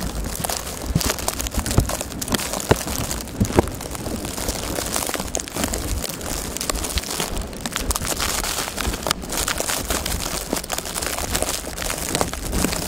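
Blizzard wind buffeting the microphone with a low rumble, under a dense, irregular crackling that runs on without a break.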